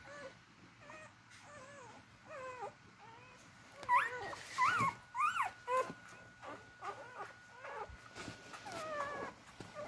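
Very young beagle puppies whimpering and squeaking as they crawl in search of their mother's teats to nurse: many short cries that rise and fall in pitch, loudest in a run of calls about four to six seconds in.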